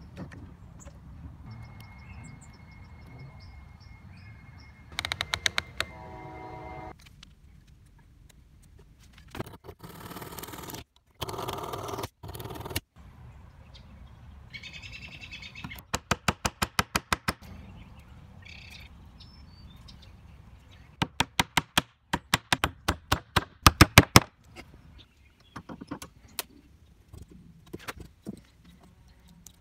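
Runs of quick, evenly spaced clicks from hand work at a bench: one run about halfway through, and a louder one a few seconds later that grows louder toward its end. Softer knocks and handling noise come in between.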